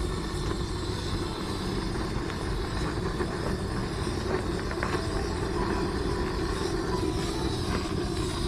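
Steady rushing rumble while the wood pellets in a camping wood stove are being lit.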